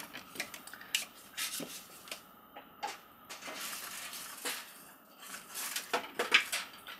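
Light scattered clicks and rubbing from wires and plastic parts being handled inside an electrical breaker panel, with a longer stretch of rubbing about halfway through.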